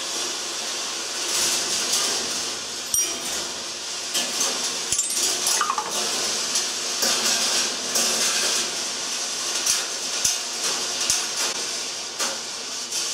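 Balls rolling along the stainless steel wire tracks of a rolling ball sculpture: a steady metallic rolling rattle with frequent sharp clicks and clacks as balls run over the track and knock into parts of it.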